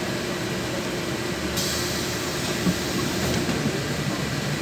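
Steady drone of engine and road noise inside a LiAZ 6213.21 articulated city bus. About a second and a half in, a sharp hiss of air starts suddenly and lasts under two seconds, typical of the bus's compressed-air system venting.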